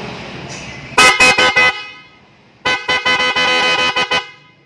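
Newly installed PIAA motorcycle horn being tested. It sounds in a burst of about five quick toots, then after a short pause a second run of toots with one held blast of nearly a second.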